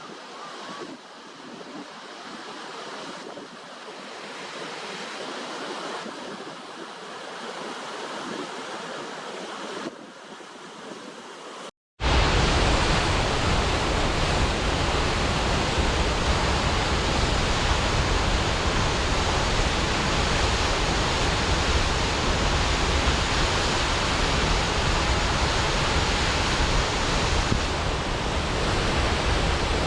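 Waterfall rushing water: a softer wash that slowly swells, broken by a brief silence about twelve seconds in, then a much louder, steady rush of falling water.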